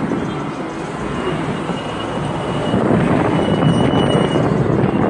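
Steady road and engine noise of a vehicle driving, with a faint thin high whistle twice in the middle.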